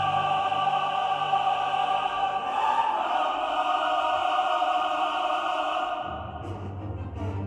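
Background orchestral music with a choir holding long, sustained chords. Low strings come in about six seconds in.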